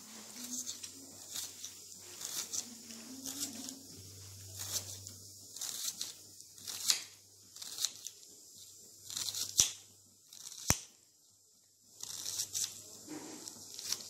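Kitchen knife chopping a red onion on a stone countertop: irregular crisp cuts through the onion layers, with two louder, sharper clicks of the blade on the stone about ten seconds in.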